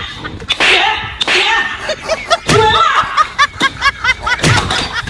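Several sharp, noisy puffs of breath, then a run of rapid laughter at about five 'ha's a second.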